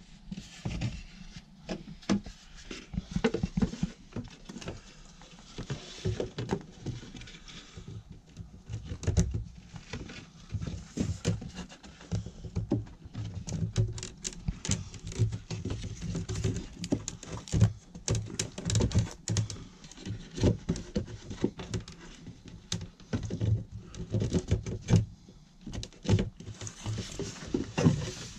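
Irregular knocks, taps and rubbing of wooden ceiling cladding boards being handled and pushed into place against the boards already fitted.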